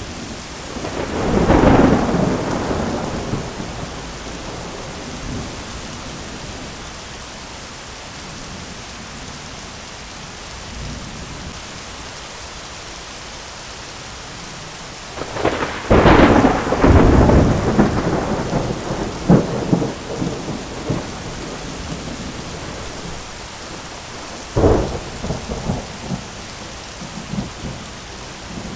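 Thunderstorm: steady rain with rolls of thunder, a rumble about two seconds in and a longer, louder crackling peal starting about halfway through, followed by a few more claps near the end.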